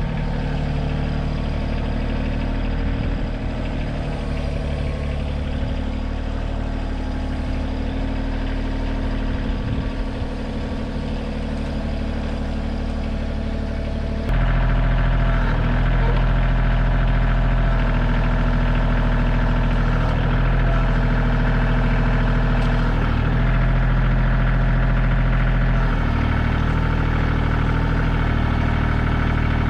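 Kioti tractor's diesel engine running steadily while the backhoe digs. About fourteen seconds in it becomes suddenly louder, then dips briefly every few seconds as the load changes.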